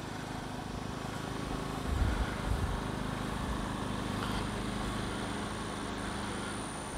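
Generac iQ3500 inverter generator's 212cc OHV engine running steadily with eco mode off, giving a quiet, even hum. A brief low rumble comes about two seconds in.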